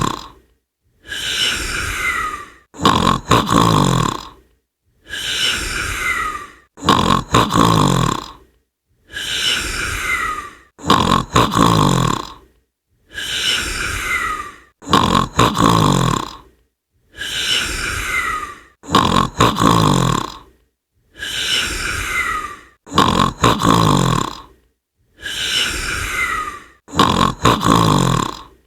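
A snore-like sound effect looping over and over, each cycle two bursts: a low buzzy one with a falling tone, then a shorter clicky one. The cycle repeats identically about every four seconds.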